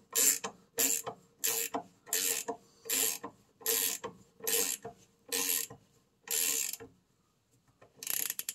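Ratcheting box-end wrench clicking in short bursts as it is swung back and forth, about ten strokes, tightening the 11/16 nut on the lower mount of a Triumph Spitfire rear shock absorber. The strokes stop about seven seconds in, with one last short burst a second later.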